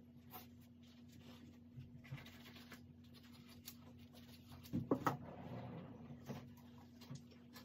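Paper towel being handled and crumpled, rustling softly, with a few sharper crinkles and knocks about five seconds in, over a steady low hum.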